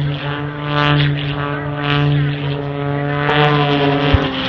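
Propeller-driven aerobatic airplane's piston engine droning steadily, its pitch sliding slightly downward near the end, with a brief knock shortly before the end.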